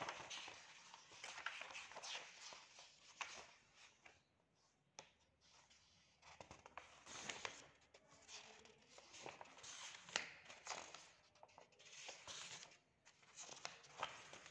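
Faint rustling and crisp flicks of printed paper sheets being leafed through by hand, page after page, with a short lull a few seconds in.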